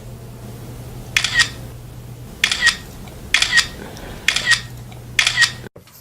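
A series of sharp double clicks, about one pair a second, each pair ending in a short high chirp, over a low steady hum.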